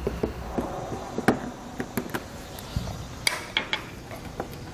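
Scattered sharp plastic clicks and taps as push-pin fasteners holding a car's fender liner to the bumper fascia are worked out, with a quick cluster of clicks a little over three seconds in.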